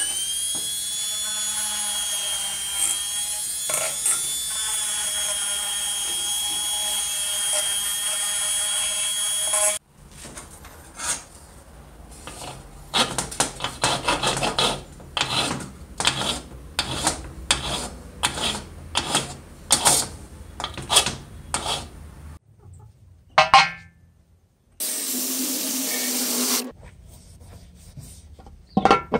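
A small rotary tool fitted with a wire brush whines at a high, steady pitch against a brass fitting on an old kerosene stove's steel fuel tank, then cuts off sharply. After it come repeated rasping strokes of a hand file worked along the tank's edge, about one and a half strokes a second.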